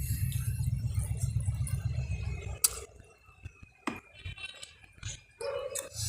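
Eating at a table: a low rumble that cuts off about two and a half seconds in, then a few sharp clinks of tableware.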